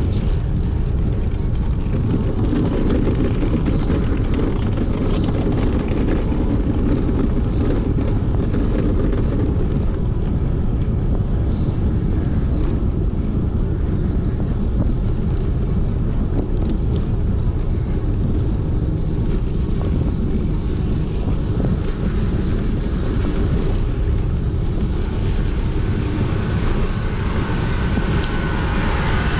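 Steady wind rumble on the action camera's microphone, with road and tyre noise from a bicycle being ridden.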